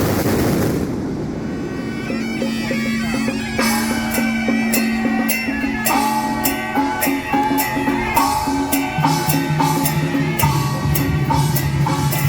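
Temple procession music: a nasal, reedy wind melody over a held drone, with drum and cymbal strikes keeping a steady beat of about two a second from roughly three seconds in. A noisy wash fades during the first second or two.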